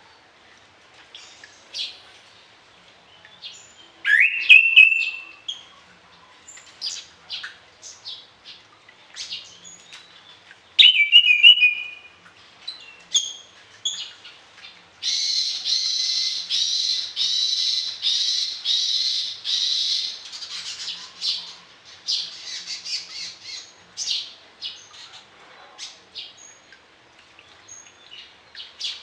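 Orange-headed thrush singing a varied song full of mimicked phrases: scattered short high notes, two loud rising whistles, and a long fast chattering run in the middle.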